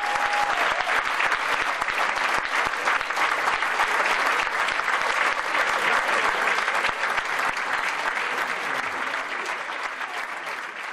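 Audience applauding: dense, steady clapping that slowly fades toward the end.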